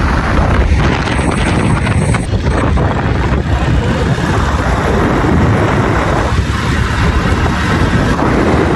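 Strong, steady wind buffeting the microphone, as when filming in the open air while travelling.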